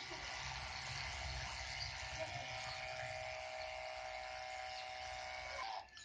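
A 12-volt DC high-pressure water pump running steadily with a whine, its water spraying from a hose nozzle onto a car. The sound cuts off suddenly near the end.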